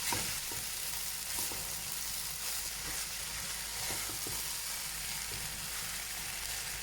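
Soaked basmati rice being stirred into meat and peas sizzling in a pot, a steady sizzle with a few short scrapes of the spoon.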